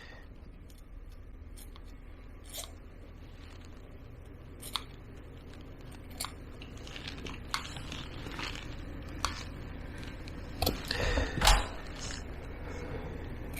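Grooming scissors snipping through a dog's fur in scattered, irregular cuts, with a louder flurry of snips and handling noise about eleven seconds in.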